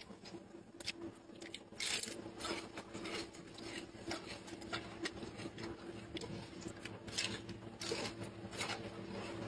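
A gorilla chewing pieces of crunchy green bell pepper: irregular crisp crunches, the loudest about two seconds in and several more near the end.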